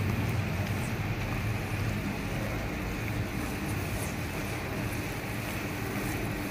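Minced beef with tomato frying in hot oil in a pan, a steady sizzle with faint crackles, while a spatula stirs it.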